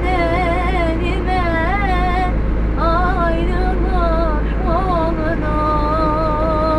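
A woman singing a Turkish song in a high voice, with wavering, ornamented phrases and a long held note near the end, over the steady low drone of a moving bus.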